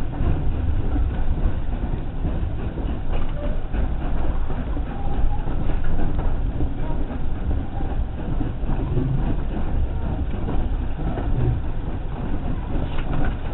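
Passenger train running along the track, heard from on board a carriage: a steady low rumble with a few clicks from the wheels.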